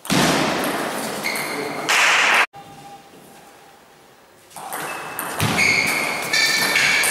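Table tennis play in a hall: ball hits with loud, noisy stretches and high squeaks. The sound cuts out abruptly about two and a half seconds in and comes back loud about two seconds later.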